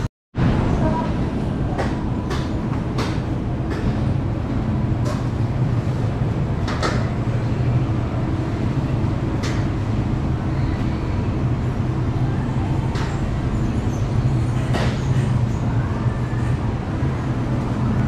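Steady low hum of a grocery store's refrigerated display cases and ventilation, with scattered short clicks. The sound drops out for a moment at the very start.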